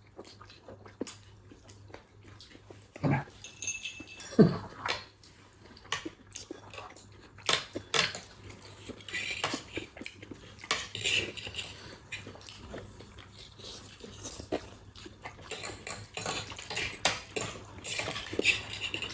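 Cutlery clinking and scraping on plates and bowls, with chewing and other eating noises, during a meal of chowmein and momos. Irregular short clicks, the loudest knock about four and a half seconds in.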